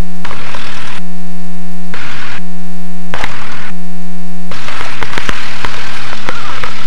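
Electrical hum on the aircraft intercom audio feed, broken three times by short bursts of static crackle, then giving way to continuous loud static hiss about two-thirds of the way in.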